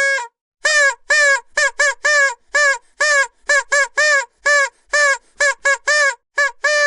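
A vuvuzela blown in quick, uneven short toots, about fifteen in a row with brief gaps, each note bending slightly up and then down. Near the end it moves into one long held note.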